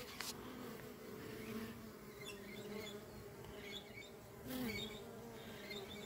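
Honeybees buzzing around a hive entrance: a steady low hum that briefly grows louder about four and a half seconds in.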